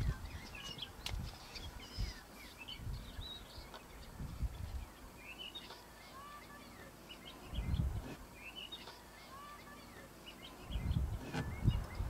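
Small birds chirping and twittering on and off, short repeated calls throughout, with a few brief low rumbles in between.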